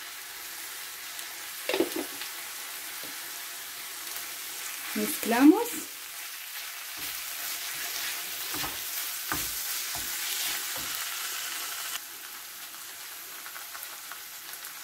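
Peppers, tuna and rice noodle filling sizzling in a frying pan as a wooden spatula stirs it, with a steady hiss and a few knocks of the spatula against the pan midway through.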